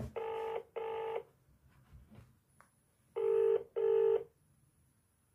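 Telephone ringback tone from a smartphone on loudspeaker: two British-style double rings, each a pair of short steady buzzing tones, as an outgoing call rings before it is answered. A short click comes right at the start.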